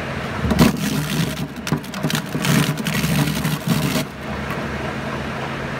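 Kubota compact tractor's diesel engine running steadily, driving a PTO-powered apple scratter. From about half a second in until about four seconds in, loud irregular crunching and knocking as apples are shredded by the spinning drum, then only the steady engine and drum hum remains.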